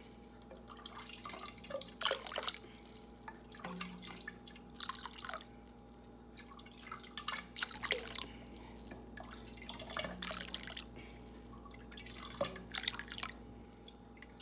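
Chicken broth splashing and dripping as a plastic ladle dips into a plastic tub of it and pours it out, in irregular splashes about every one to two seconds. A faint steady hum runs underneath.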